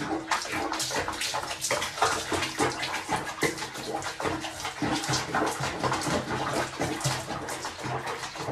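Water splashing and sloshing in a plastic basin as a cat sits in a foamy bath, with many quick splashes.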